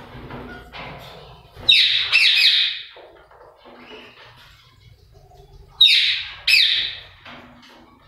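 Caged green parakeets calling: loud shrill screeches, a burst of three about two seconds in and two more about six seconds in, with fainter chirping between.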